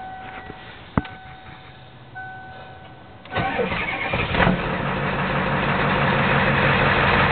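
Indirect-injection diesel pickup engine on a cold start at 31 °F, heard from inside the cab: a dashboard warning chime sounds in steady tones broken by pauses, with a sharp click about a second in. Just over three seconds in the engine cranks, catches within about a second and settles into a steady idle.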